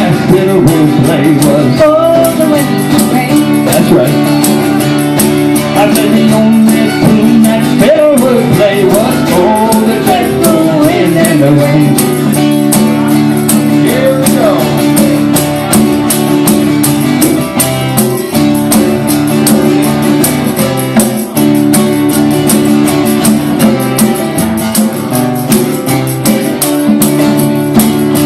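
Folk ballad music: strummed acoustic guitar, with a wavering lead melody over it for roughly the first half.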